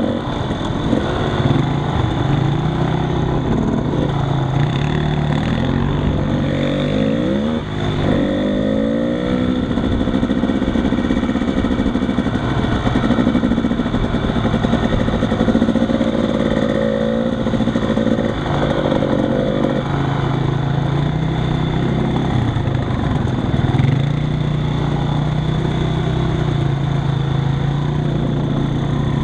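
ATV engines running at low trail speed, the engine pitch rising and falling several times with the throttle.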